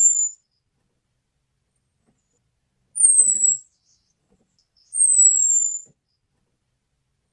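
Orange-headed thrush calling: thin, very high whistled notes, each falling slightly in pitch and lasting under a second. One ends just at the start, then two more follow about three and five seconds in. This is the call used to lure male orange-headed thrushes.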